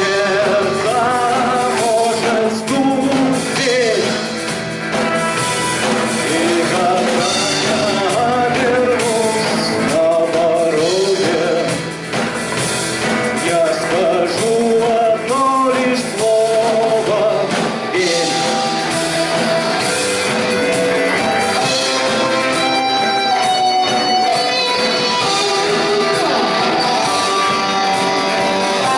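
Rock band playing a song live, with guitars carrying a melodic line over the band. It is loud and continuous.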